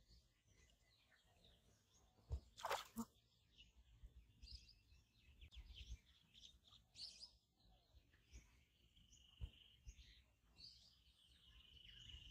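Near silence with faint, scattered bird chirps and calls, and one brief louder noise about two and a half seconds in.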